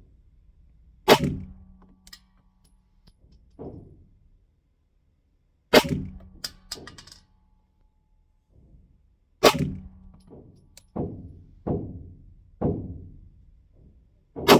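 9 mm Glock 45 pistol firing a slow group of 115-grain rounds: four sharp, loud shots several seconds apart, with fainter bangs in between.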